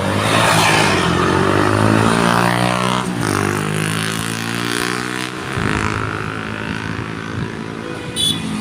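A bus passing at speed while its ship-style air horn sounds a long, low, deep blast, the pitch dropping as it goes by, over the bus engine and road noise.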